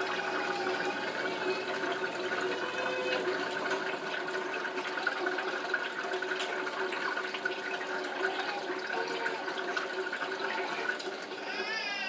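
Water running steadily from a kitchen tap; it stops about eleven seconds in. Right at the end a young child starts crying.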